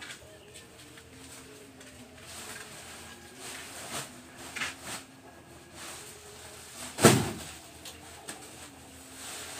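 A heavy sack of poultry feed lands on a handcart with one dull thud about seven seconds in. Before it come bursts of rustling as the woven plastic feed sacks are handled.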